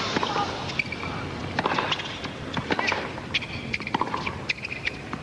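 Tennis rally on a hard court: the ball struck back and forth by rackets and bouncing, heard as a series of sharp knocks about every half second to a second, with brief squeaks of shoes over a faint crowd murmur.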